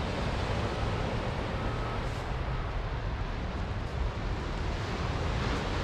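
Steady wind noise on the microphone, with the wash of small waves breaking on rocks and a sandy beach below.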